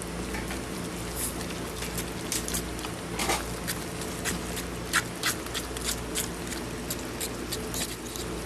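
A spoon stirring and scraping potato salad in a bowl, with irregular clicks and short scrapes as the mayonnaise is worked into the mashed potatoes, over a steady low hum.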